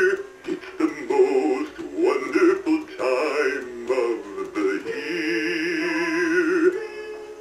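Background music: a man's singing voice with vibrato, holding long notes near the start and again from about five seconds in, with moving sung phrases between them.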